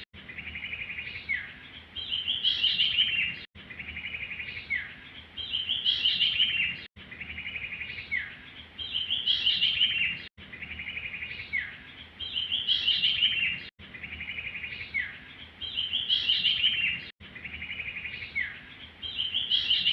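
Looped recording of a small songbird's call, the same phrase repeating about every three and a half seconds: a fast trill of high chirps followed by a quick falling note. It is a lure track for attracting birds to a trap.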